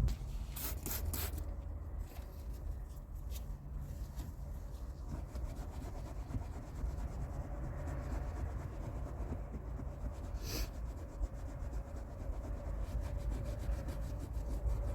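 Steady rubbing and scrubbing on a cleaner-soaked seat belt strap, with a few sharp clicks about a second in and one short sharp noise about ten and a half seconds in.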